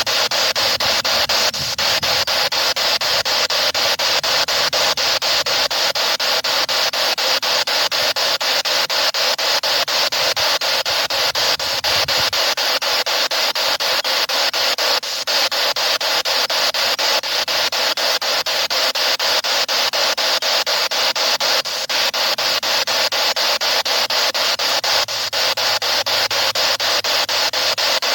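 Spirit box sweeping through radio frequencies: steady loud radio static, chopped many times a second as it steps from station to station.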